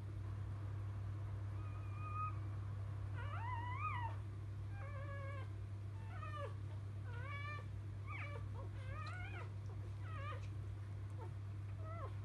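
Newborn Labrador Retriever puppies squeaking, a string of about ten short, high, wavering cries starting about two seconds in. A steady low hum runs underneath.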